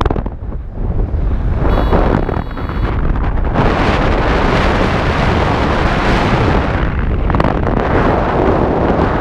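Airflow buffeting the microphone of a paraglider in flight: a steady, loud wind rush that grows heavier about three and a half seconds in. A flight variometer gives a high electronic beep about two seconds in.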